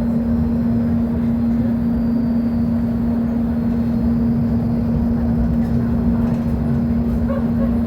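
Volvo B10M city bus's horizontal underfloor straight-six diesel engine running at a steady speed, a constant low drone with a strong steady hum through it.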